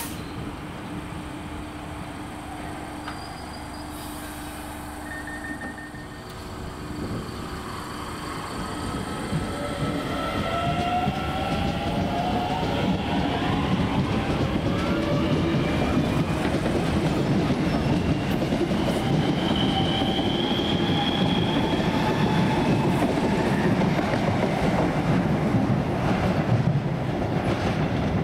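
DART electric train pulling away from a station platform. Its traction motors whine, rising in pitch as it accelerates, over the rumble of the wheels on the rails. It grows louder from about eight seconds in, then holds steady.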